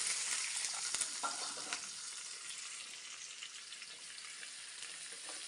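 Chopped onions and curry leaves sizzling in hot sesame oil, just added to the pan; the sizzle slowly dies down, with a few light clicks in the first couple of seconds.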